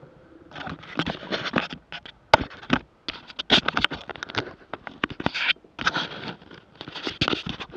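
Irregular scratchy crunching in short bursts as a bicycle moves slowly over packed snow.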